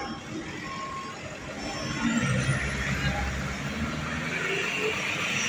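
Heavy AFAD truck engine running as the truck pulls out, its low rumble growing about two seconds in.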